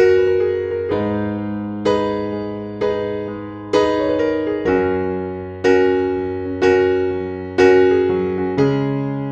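Background music: slow electric piano chords, one struck about every second and left to fade, over a held bass note.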